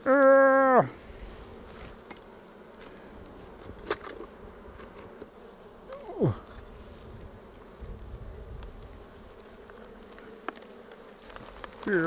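Honey bees buzzing around an opened wild hive, with a low steady hum throughout. A loud, steady hum lasts under a second right at the start. About six seconds in, a bee passes close by, its pitch dropping quickly as it goes. A few light ticks and scrapes come from a hive tool prying old comb from the rusty tank.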